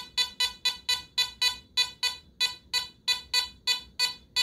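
Metal detector (Teknetics Omega 8500) giving its high-pitched target tone in quick, even beeps, about four a second, as a quarter is passed over the coil in an air test.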